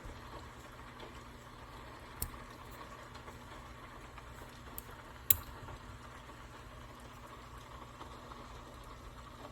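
Steady low background hum, broken by two sharp clicks, the louder one about five seconds in.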